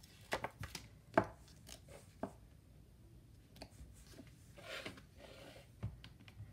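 Rubber cling stamp and clear acrylic stamp block being handled and pressed onto an ink pad: scattered light clicks and taps, a short rustling rub about three quarters of the way through, and a soft thump near the end.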